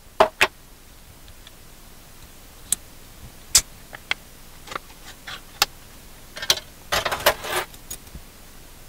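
Scattered sharp clicks and taps from a can of ground coffee being handled: the plastic lid coming off and being set down, and a metal spoon knocking against the can. There is a short run of scraping about seven seconds in.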